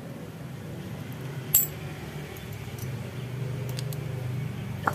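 Small steel engine parts clinking as they are handled over a dismantled motorcycle cylinder head: a sharp metallic clink with a short ring about a second and a half in, and a second click near the end. A steady low hum runs underneath.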